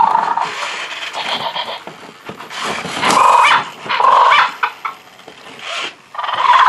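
Spin Master Zoomer Dino robotic dinosaur toy playing its dinosaur growl and roar sounds through its speaker in four short bursts: one at the start, two in the middle and one near the end.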